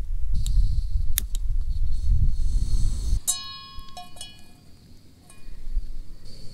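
A low rumble with a few clicks. Then, about three seconds in, a metal object is struck and rings with a clear, bell-like tone. A lighter ring follows about a second later, and another strike rings out near the end.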